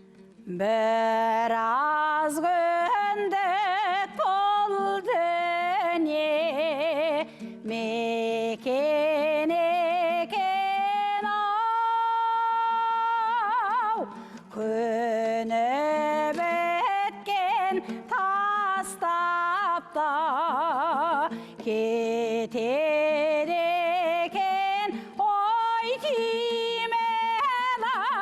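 A singer performing an ancient Kazakh folk song from the Altai region, with wide vibrato and long ornamented held notes over a steady low drone accompaniment, in several phrases with short breaths between them.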